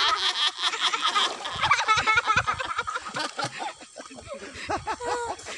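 Water splashing around a person wading in a pond, followed by a string of short, high-pitched calls or cries that rise and fall in pitch.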